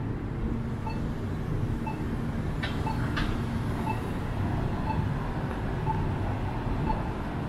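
City street traffic: a steady low rumble of passing cars, with a short high beep repeating about once a second, and two brief sharp high sounds about a third of the way in.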